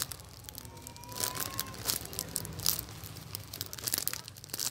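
Clear plastic bags crinkling as squishy toys are pressed and handled through their packaging, in irregular crackles.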